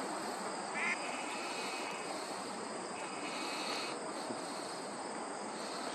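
Steady outdoor background hiss, with faint insect trills coming and going.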